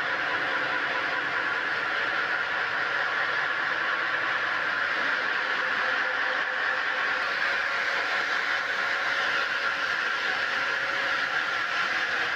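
Large water-cooled circular diamond blade of a stone block-cutting machine grinding through a silver-grey stone block, with cooling water spraying: a steady, unchanging grinding hiss.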